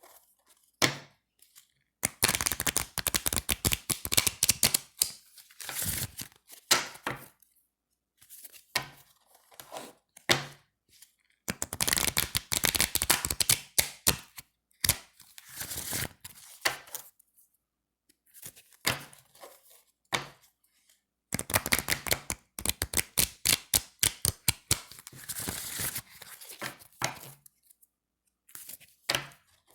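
A deck of thin, slick cards being riffled and shuffled in repeated flurries of rapid fluttering clicks, each lasting a few seconds, with short pauses between.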